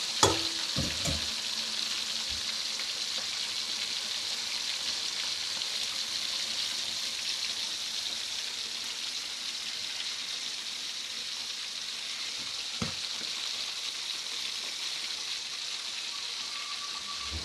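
Carp deep-frying in hot oil: a steady, even sizzle throughout. A sharp knock comes just after the start, and a smaller click about 13 seconds in.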